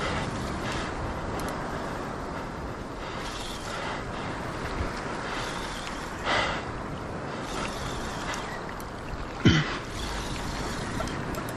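Steady rush of wind and sea on the microphone, with two sharp breaths of effort from an angler fighting a fish on the line: one about six seconds in, and a louder one dropping in pitch about nine and a half seconds in.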